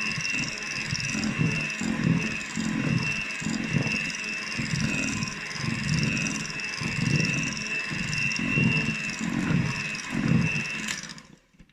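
Electric mixer beating chocolate cake batter in a bowl: a steady high motor whine over a low churning that pulses about once or twice a second. It is switched off near the end.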